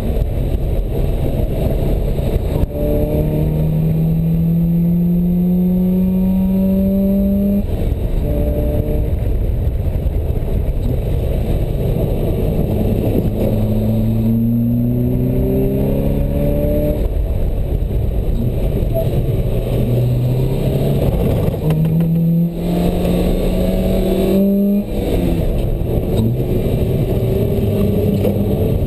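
Sports car engine heard from inside the open cockpit while driven hard on a circuit. The revs climb steadily and then drop at each gear change or lift, several times over, under a steady rush of road and wind noise.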